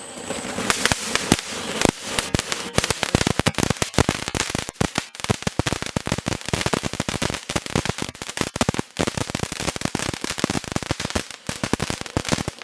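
A Rudra 'High Voltage' fancy firecracker going off in a long, dense string of rapid sharp cracks and pops, many a second, over a crackling hiss. It starts abruptly and keeps going without a break.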